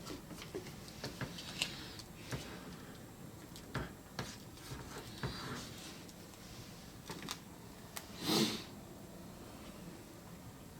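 Scattered small clicks, taps and rustles of hand work laying epoxy-wetted fiberglass cloth onto a plastic seat trim panel, with one louder brief rustle about eight seconds in.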